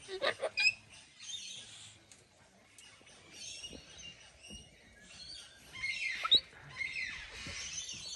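Birds chirping: short high calls that come and go and overlap. They are loudest just after the start and again around six seconds in.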